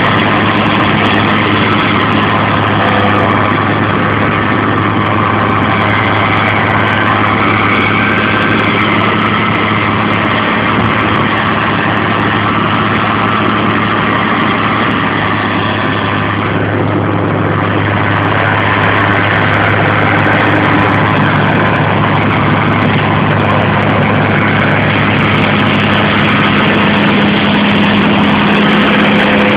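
Large farm tractor's engine running steadily with a low drone, powering a tractor-mounted soil stabilizer.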